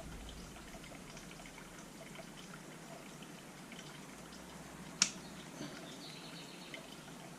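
Faint small handling sounds of bench work as the hole in a carburettor gasket is widened, with one sharp click about five seconds in.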